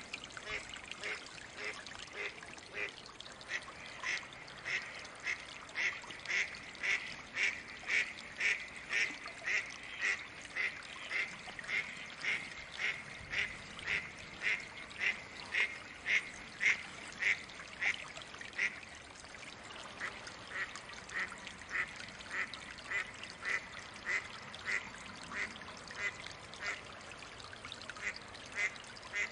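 Mallard quacking: a long run of short, evenly spaced quacks, about two a second, with a brief break about two-thirds of the way through.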